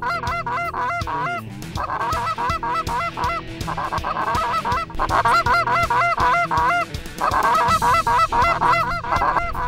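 Canada goose honks and clucks in quick runs of sharp, repeated calls, coming in about five bursts of one to two seconds each. Low background music runs underneath.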